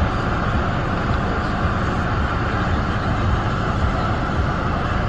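Steady, even rushing noise inside a car's cabin, starting abruptly.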